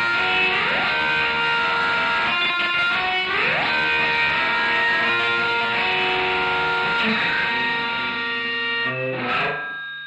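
Electric guitar, a Fender Jaguar played through an Electro-Harmonix Polyflange set to double-track mode and a Fender Twin Reverb amp, playing thick ringing chords. It slides up into a chord three times, about three seconds apart, and the playing stops about nine and a half seconds in.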